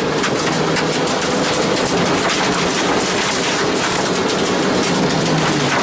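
Rally car heard from inside the cabin, its engine running hard with the pitch rising and falling as the revs change, over a dense rattling clatter from the car and the road.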